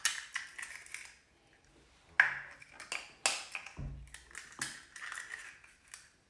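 Eggshells cracked open with a knife blade: several sharp taps and cracks about a second apart as the shells break.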